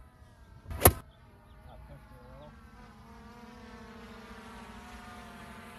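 A single sharp crack about a second in, then a steady buzzing motor hum with a whine that slowly grows louder.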